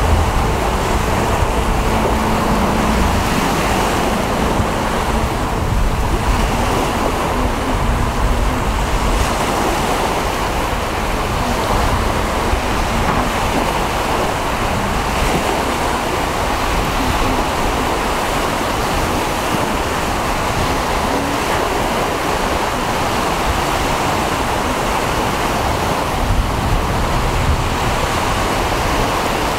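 Waves breaking and washing on the shore, with wind on the microphone adding a low rumble; a steady rushing noise.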